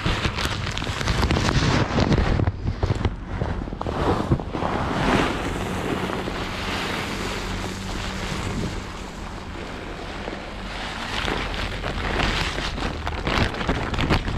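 Wind buffeting the microphone in gusts, rising and falling.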